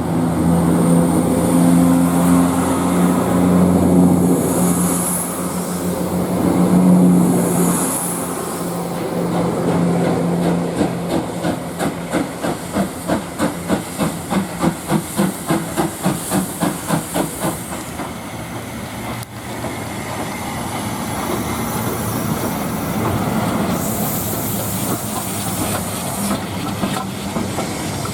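Steam locomotive working: a low steady drone with hiss, then, from about twelve seconds in, a run of exhaust chuffs at roughly two to three beats a second for about six seconds, giving way to a steady hiss and rumble of the train.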